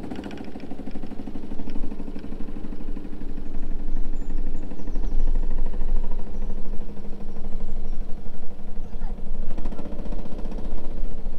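Golf cart running steadily as it tows a wheeled chicken coop across grass, the sound building over the first few seconds and then holding.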